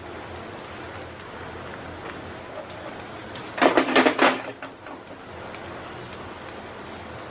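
Oil sizzling steadily under potato-and-pea patties shallow-frying in a nonstick pan. About halfway through, the plastic spatula scrapes loudly against the pan for under a second as the patties are turned.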